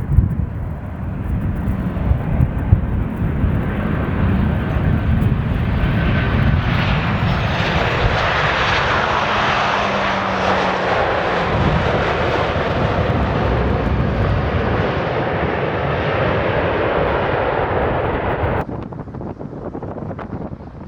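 Jet airliner's engines passing close by: a loud rushing noise that builds over the first several seconds with a faint falling tone, then cuts off abruptly near the end. Wind buffets the microphone underneath.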